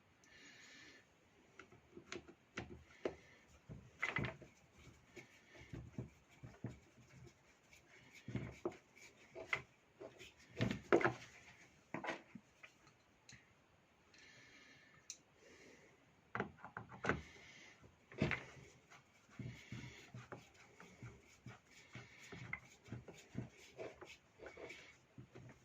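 Irregular clicks and knocks of chainsaw parts being handled and set down, with a few short scraping or rubbing sounds in between, during the disassembly and cleaning of an electric chainsaw.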